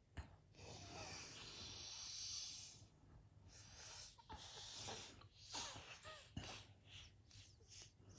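Soft breathing close to the microphone: a long breath of about two seconds near the start, then a run of short breaths and sniffs about every half second, some with a faint squeaky whistle.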